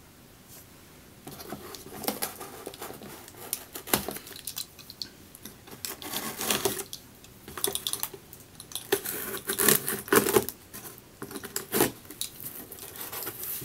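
Cardboard shipping box being cut open along its packing tape and its flaps pulled back: irregular scraping, ripping and rustling of cardboard and tape, starting about a second in.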